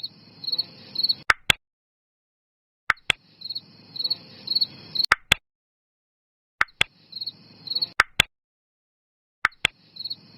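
Short bursts of cricket chirping, each a few quick trills over a faint hiss, cut in and out with sharp clicks and separated by dead silence. The bursts come four times, each lasting about one to two seconds.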